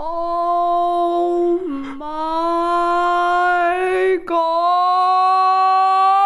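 A woman's voice holding three long, drawn-out notes with brief breaks between them, each sliding slowly upward in pitch.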